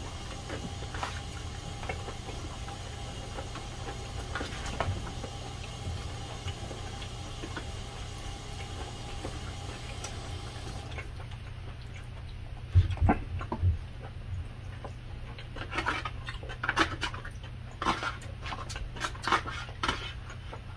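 Metal spoon and fork scraping and clicking against a plastic takeout tray while scooping rice, mixed with chewing and mouth sounds. The clicks come more often and louder in the second half, over a faint steady hum.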